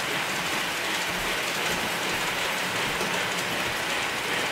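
Model freight train running along the layout track, a steady rolling noise of its wheels on the rails.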